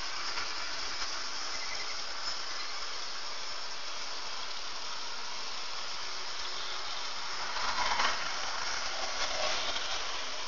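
H0-scale model train running on the layout track, heard as a steady rolling hiss. The sound swells briefly about eight seconds in.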